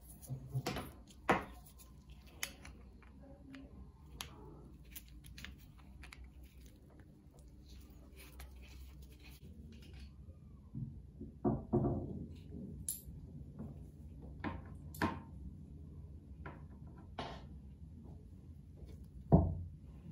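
Scattered small clicks and knocks of hand work at a bench: a screwdriver and a rubber power cord being handled, then rusty metal grinder parts set down in a tray. The loudest knock comes near the end.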